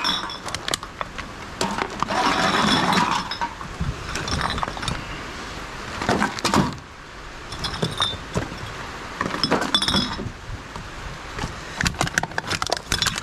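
Glass bottles and aluminium drink cans clinking and knocking together as they are handled out of a cardboard box and dropped into a plastic bag, with rustling of the bag and cardboard. Several of the knocks ring briefly like glass.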